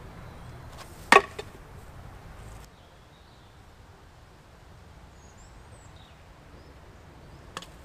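A single sharp knock about a second in and a fainter one near the end, over quiet outdoor background with a few faint high bird chirps.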